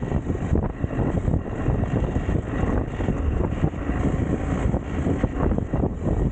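Motorcycle on the move: wind rushing over the microphone with engine and road noise underneath, buffeting unevenly.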